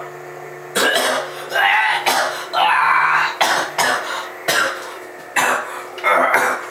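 Toy Darth Vader sound effects: a string of short hissing bursts, one every half second to second.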